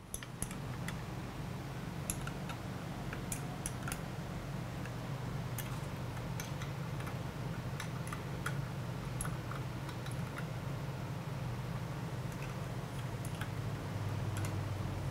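Light metallic clicks and ticks, scattered irregularly, as a 10 mm wrench works the locking screws of pillow-block bearings on steel guide rods. A steady low hum runs underneath.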